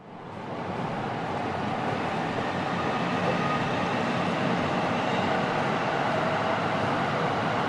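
A train running: a steady rumbling noise with faint steady tones in it, fading in over the first second.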